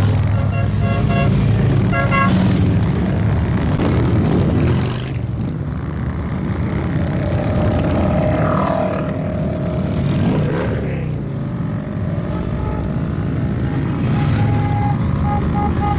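Parade of motorcycles, mostly Harley-Davidson V-twins, rumbling steadily as they ride past in a continuous stream. Short repeated beeping tones sound twice, at the start and again near the end.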